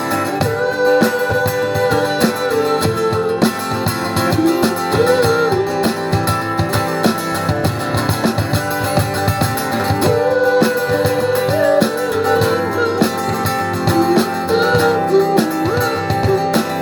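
Live rock band playing an instrumental break: a single-note guitar melody with bent notes over strummed guitar chords and a steady drum beat.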